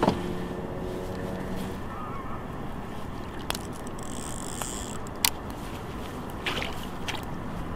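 Water sloshing softly against a small boat's hull, with a few sharp clicks of gear being handled, the loudest about five seconds in.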